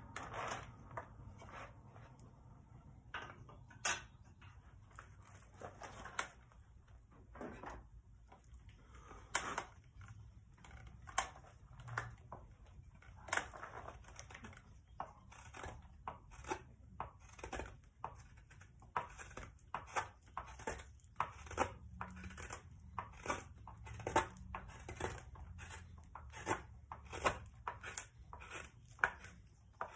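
Twca cam hook knife cutting shavings out of the bowl of a wooden spoon, each pull a short sharp slicing scrape. A few scattered cuts at first, then from about ten seconds in a steady run of about one and a half cuts a second.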